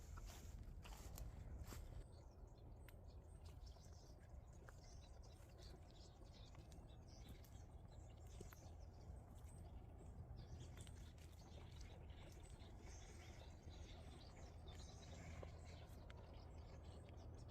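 Near silence: faint outdoor ambience, a low steady rumble with scattered faint chirps and ticks.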